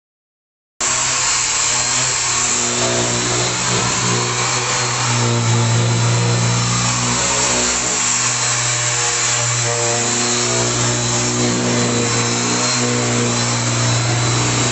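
Handheld corded power sander running steadily while it is worked across the flat face of a carved wooden headboard, a loud hum with a broad hiss of abrasive on wood. It starts abruptly about a second in.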